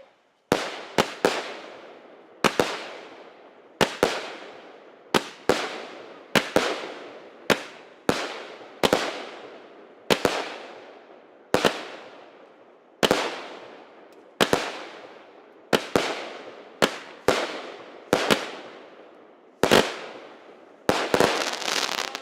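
Fireworks going off in a steady series of sharp bangs, often in quick pairs, each followed by a fading crackle, with a rapid cluster of bangs and a longer crackle near the end.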